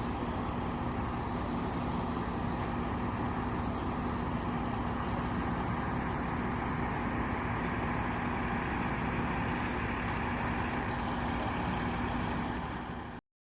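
Steady roadway traffic noise with a steady hum running through it. The sound cuts off abruptly near the end.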